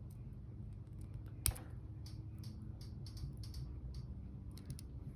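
Light clicks and taps of small metal tools and beads being handled, with one sharp snap about one and a half seconds in, as a one-step looper plier cuts and closes a wire loop.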